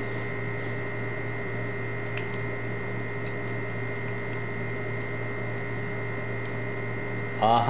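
Steady electrical mains hum, with a few faint, sparse clicks from a hand-held pick tool working the levers inside a five-lever mortice lock.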